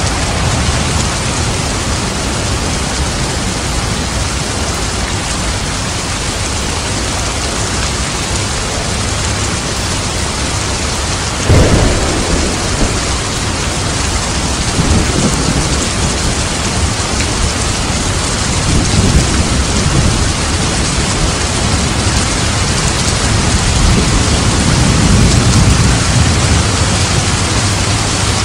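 Steady heavy rain with thunder: a sharp thunderclap about eleven seconds in, followed by several low rolling rumbles.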